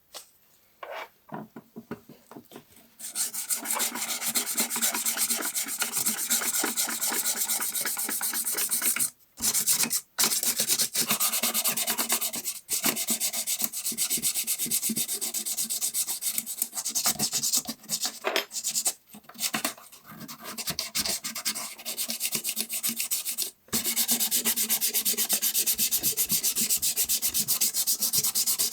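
Sandpaper rubbed rapidly back and forth by hand on a diecast model car, a dry scratchy rasp. It begins as scattered light scrapes and settles into steady fast strokes after about three seconds, with a few brief breaks.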